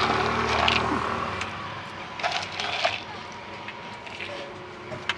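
A vehicle's engine hum fades away over the first second and a half. A few light clicks and rustles follow, with one sharp click near the end.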